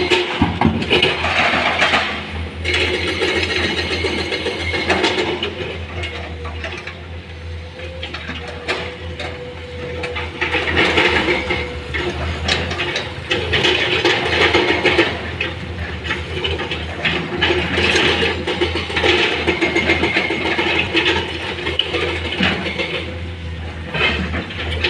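Excavator at work: a steady engine drone under repeated metallic clanks and rattling clatter, with a steady whine for a few seconds around the middle.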